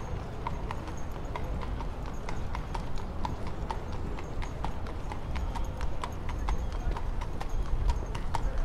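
A horse's hooves clip-clopping: a quick, uneven series of sharp clicks, several a second, going on throughout.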